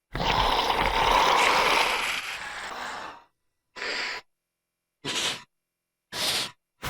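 Dilophosaurus creature sound effect: a long, breathy hiss of about three seconds that fades out, then three short breathy huffs about a second apart, with dead silence between them.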